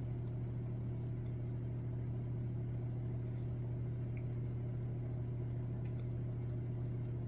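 Miele G6625 dishwasher filling with water: a steady low hum at an even level. This is the fill stage, before the circulation pump starts up.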